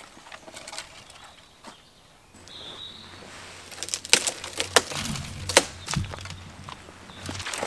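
Dry wood cracking and snapping from a storm-felled tree, several sharp cracks in the second half, with the rustle of a jacket as branches are pulled and broken by hand.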